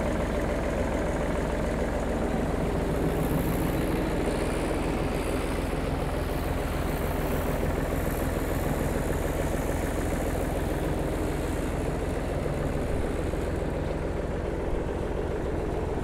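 Vintage tractor's big 351 cubic inch three-cylinder diesel engine running steadily as the tractor drives slowly across grass.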